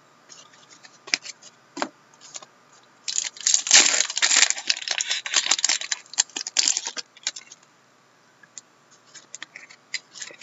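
A trading card pack's wrapper being torn open and crinkled by hand, a dense crackling that starts about three seconds in and lasts about four seconds. Before it come a few light clicks of cards being handled.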